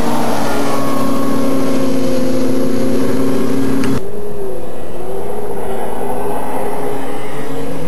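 Snowmobile engines running at speed, a steady whine as sleds pass close by. About four seconds in the sound changes abruptly to a more distant snowmobile engine whine that rises and falls in pitch.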